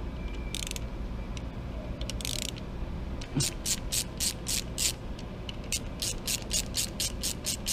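A ratcheting driver clicks as it backs out the spring bolts on a Ducati Monster 620's wet-clutch pressure plate. A few scattered clicks come first, then about three and a half seconds in a steady run of clicks at about four a second.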